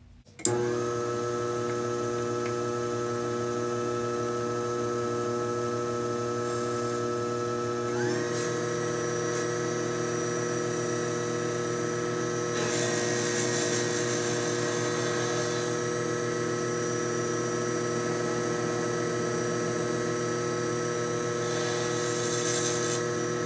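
Cue lathe motor starts about half a second in and runs with a steady whine, stepping up in pitch about eight seconds in. A hiss joins about halfway through as the tool faces off the end of the maple handle.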